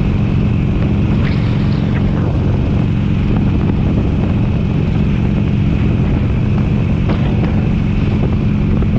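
2007 Harley-Davidson Sportster 883 Custom's air-cooled V-twin running steadily at cruising speed, with wind rushing over the helmet-mounted microphone.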